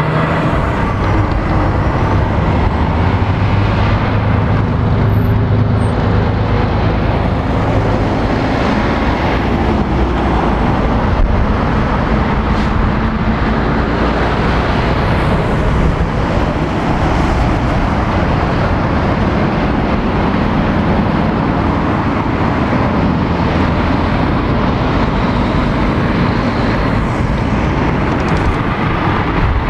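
Heavy diesel lorries pulling round a roundabout and driving past close by, over a continuous run of road traffic noise. The low engine note is strongest in the first several seconds as an articulated lorry passes.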